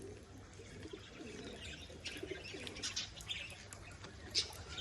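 Domestic pigeons cooing in the loft, low and wavering, with high bird chirps scattered over them.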